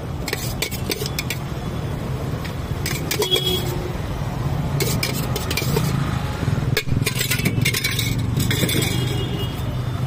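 Stainless steel pots and plates clinking and scraping as they are handled, in short clusters every couple of seconds, over a steady hum of road traffic.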